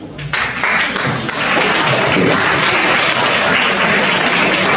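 Audience applauding, breaking out suddenly just after the start and holding steady and loud.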